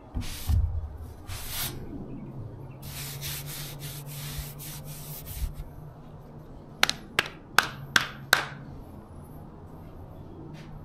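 Sandpaper rubbed over car bodywork in short repeated strokes, busiest in the first half. Then five sharp knocks in quick succession about seven seconds in, over a faint steady hum.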